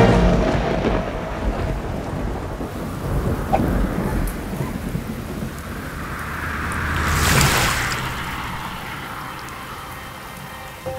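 Cartoon storm sound effects of heavy rain with thunder. A loud rumble at the start dies away, another rumble swells and peaks about seven seconds in, and then the steady rain carries on more quietly.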